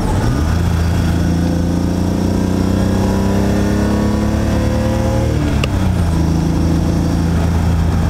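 BMW E30 engine heard from inside the cabin, pulling through a gear with revs climbing steadily. About five and a half seconds in, the revs drop with a short click as the driver shifts up, and the engine then runs on steadily in the next gear.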